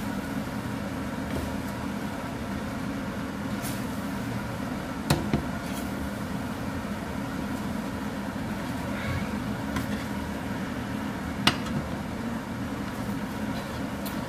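A spatula stirring and tossing rice noodles in a nonstick frying pan, with two sharp knocks of the spatula against the pan, about five seconds in and near the end, over a steady low hum.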